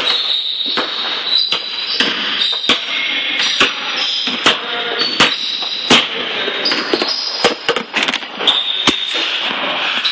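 Irregular sharp knocks and thumps on a hardwood gym floor, picked up close by a camera lying on the floor, over a steady high-pitched tone.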